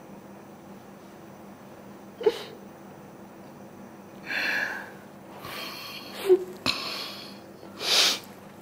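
A woman crying: a few short sobbing breaths and sniffs, with a couple of brief whimpers.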